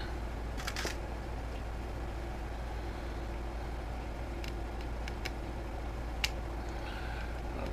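A few light clicks and taps of small precision screwdrivers and repair tools against a phone's screws and frame, over a steady low hum. The sharpest click comes a little past six seconds in.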